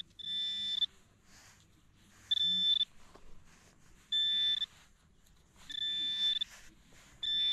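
Handheld pinpoint metal detector giving a steady high-pitched beep, five times at intervals of about a second and a half, each beep about half a second long; the last is longer. It is alerting on a metal target as it is pushed through loose sand. Faint scraping of sand between the beeps.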